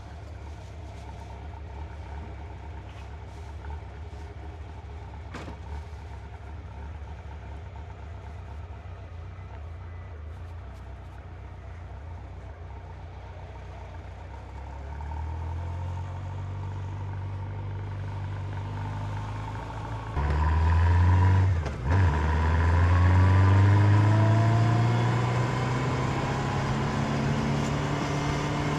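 A 1992 Honda CB750 Nighthawk's air-cooled inline-four engine idles steadily, then pulls away. The revs step up about fifteen seconds in, and the engine gets much louder about twenty seconds in. After a brief drop, the pitch climbs steadily as the bike accelerates, then levels off near the end.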